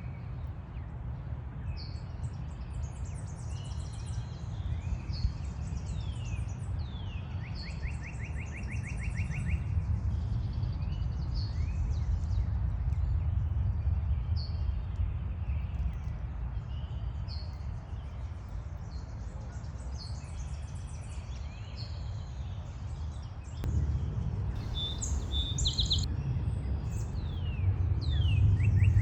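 High-pitched bird chirps and peeps, with a few rapid trills, over a steady low rumble.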